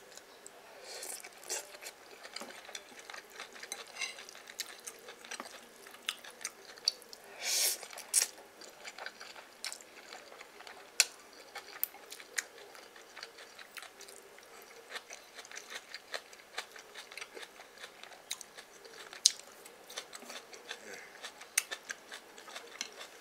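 Close-up eating sounds: someone chewing noodles, with small scattered clicks and taps of chopsticks and a spoon against china bowls. A few sharper clicks stand out, and there is one brief louder noisy sound about eight seconds in.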